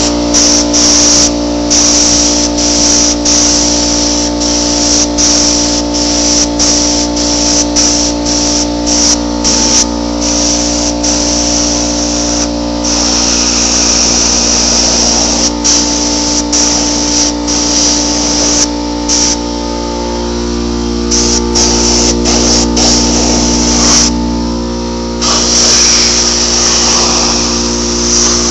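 Electric paint spray gun running: a steady motor whine under the hiss of paint spraying, the hiss cutting out briefly many times as the trigger is let off and pulled again.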